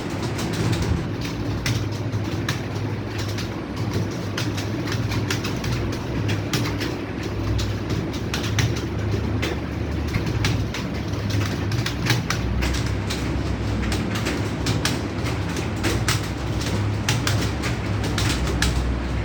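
Many computer keyboards clattering at once as a room of people type, a dense, irregular run of key clicks over a steady low hum.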